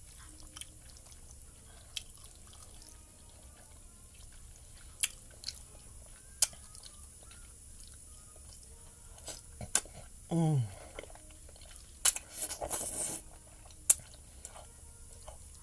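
Close-miked eating of creamy chicken ramen noodles: scattered clicks and mouth smacks. About ten seconds in there is a short falling 'mm', the loudest moment, and a noisy slurp of noodles follows around twelve to thirteen seconds.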